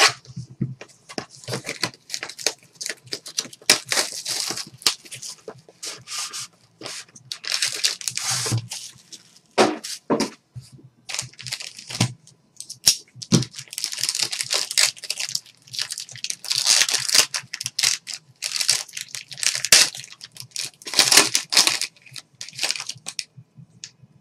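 Plastic wrapping of a sealed box of trading cards and its packs being torn open: repeated ripping and crinkling in irregular bursts with short pauses.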